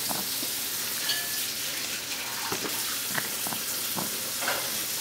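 A steady hiss with a few faint, light taps scattered through it: a baby's fingers on a plastic high-chair tray, picking at Cheerios.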